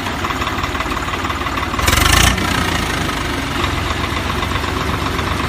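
Toy tractor running with a steady engine-like rattle, and a brief louder burst of noise about two seconds in.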